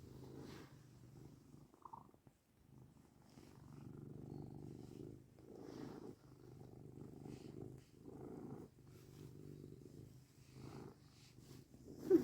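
Domestic cat purring, swelling and fading in repeated stretches of a second or two as it breathes in and out.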